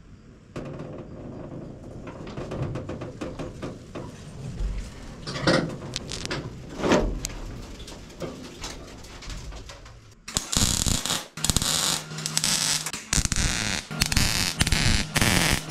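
A wire-feed (MIG) welder stitch-welding a steel patch panel into a car's front fender, starting about ten seconds in and laying short bursts of weld that stop and start. Before that there are only low shop sounds and a couple of knocks.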